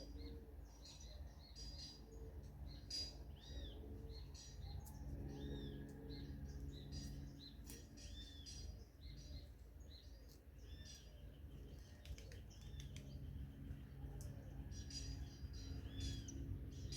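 Forest birds chirping, a stream of short arched notes repeated every second or so, over a faint low steady hum.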